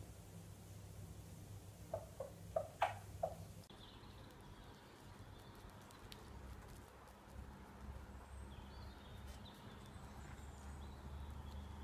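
A chicken clucks five times in quick succession about two seconds in. After that, only faint, high chirps of small birds.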